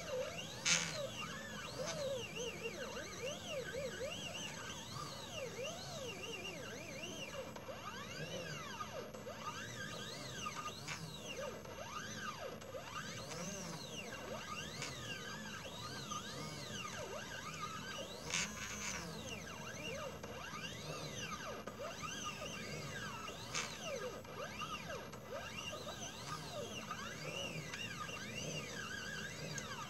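Stepper motors of a mini CNC laser engraver whining as the laser head moves back and forth over the work, their pitch rising and falling in quick glides with each move. A few sharp clicks stand out, about a second in and twice later on.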